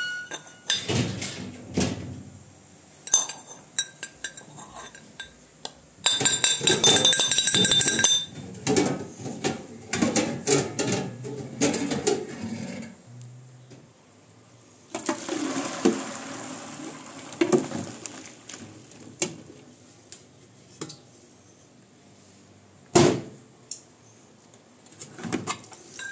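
Brass pestle knocking and clinking against a brass mortar as ground walnuts are worked and tapped out, with ringing metallic clinks, densest in a rapid run a few seconds in. Past the middle, aluminium pots and a steamer pan clank, with a few single knocks, the sharpest near the end.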